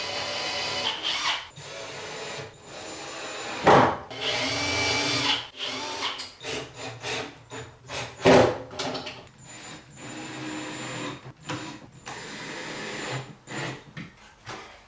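Cordless drill running in several short bursts, drilling shallow pilot holes and then driving screws into the wooden cabinet side to fix drawer slides. Two loud sharp knocks come about 4 and 8 seconds in, and the second half holds scattered clicks and rattles of handling.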